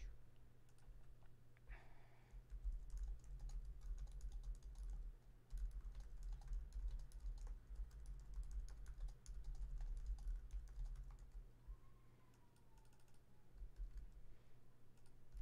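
Typing on a computer keyboard: a faint run of quick key clicks that thins out near the end.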